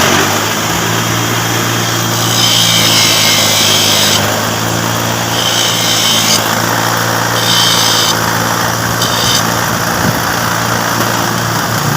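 Electric grinder motor running steadily, with four separate stretches of grinding hiss as a replacement starter-motor carbon brush is pressed against it to trim it down to size.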